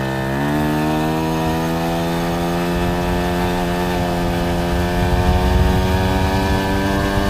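Moped engine with a CVT revving up quickly, then holding a steady high pitch as the variator, fitted with drilled-out lighter weights, keeps the revs up. A low rumble swells about five seconds in.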